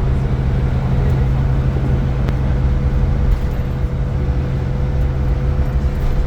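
Iveco Crossway LE 12 bus with its Cursor 9 six-cylinder diesel running steadily under way: a constant low engine drone with a steady high whine over it.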